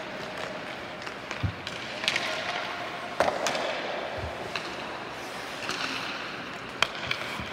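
Ice hockey play in an echoing rink: a few sharp cracks of sticks and puck, the loudest about three seconds in and another near the end, over skates scraping on the ice.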